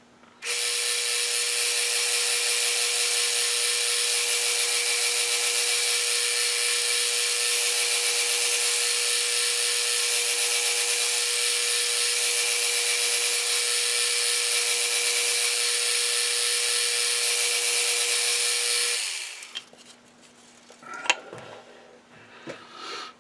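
Metal lathe running steadily, with an even whine, as the tool skims the outside diameter of a cast iron chuck backplate. The lathe stops a little before the end, and a few light clicks follow.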